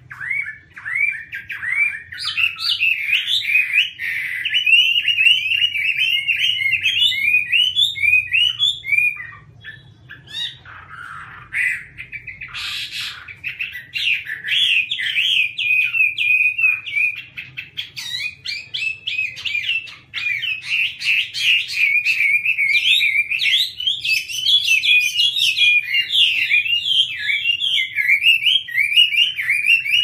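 Chinese hwamei (melodious laughingthrush) singing: a long run of loud, fast, varied whistled phrases, with a short lull about ten seconds in before the song starts up again.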